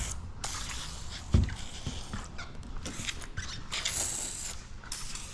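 Pressurised hand pump sprayer hissing out short spurts of tack solution onto the edge of paint protection film, once at the start and again around four seconds in. A soft knock comes about a second and a half in.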